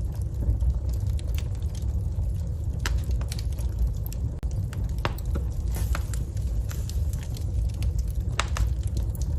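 Wood fire burning in a fireplace: irregular crackles and sharp pops of burning wood over a steady low rumble of the flames.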